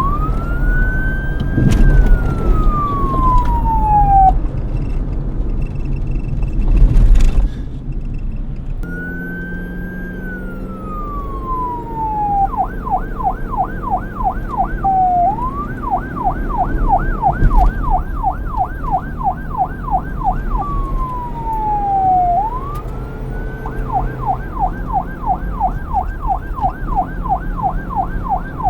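Police car siren alternating between a slow wail, rising and falling over a few seconds, and a fast yelp of about three warbles a second, over a low traffic rumble. A loud burst of noise cuts in about seven seconds in, while the siren pauses.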